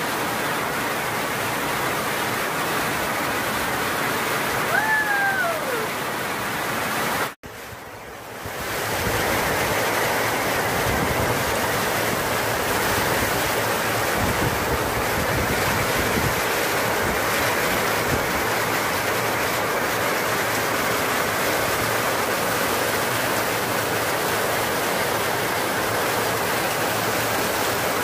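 Heavy rain pouring down in a steady hiss. A short falling whistle-like call sounds about five seconds in, and the rain sound briefly cuts out about seven seconds in before coming back a little louder.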